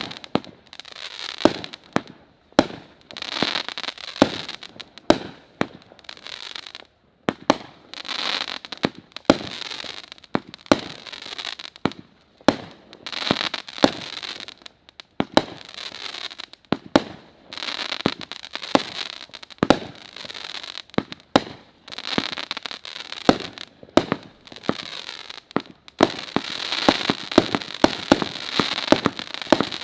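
A 36-shot XL consumer aerial finale cake firing. Shots go off about once a second, each a sharp bang, with a hissing crackle between them.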